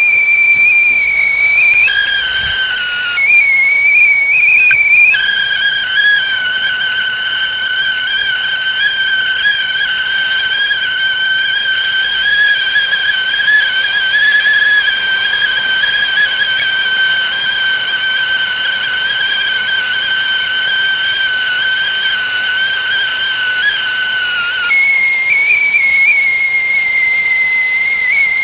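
Whistling teakettle at the boil, blowing a loud steady whistle over a faint hiss of steam. The whistle flips between a single high note and a two-note chord a few times in the first five seconds, holds the two-note sound for a long stretch, then settles back on the single note near the end.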